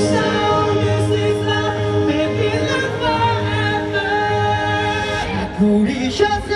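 Live pop band with male vocalists singing held, layered vocal lines over the backing, heard through a stadium PA from the crowd. The low backing thins out about five seconds in.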